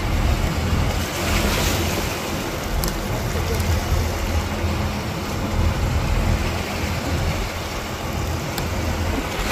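Water rushing and splashing against the side of a wooden fishing boat as a net is dragged through it alongside, over the steady low drone of the boat's engine.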